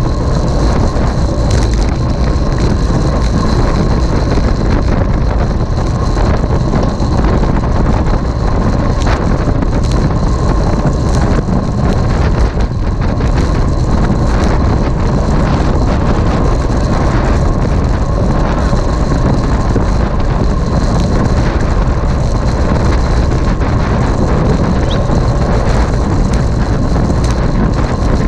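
Loud, steady wind buffeting the microphone, with rumbling road noise from riding at speed in a road cycling race.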